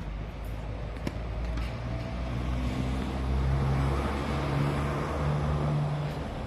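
A motor vehicle's engine running, its low hum growing louder toward the middle and easing off near the end, its pitch shifting in a few steps.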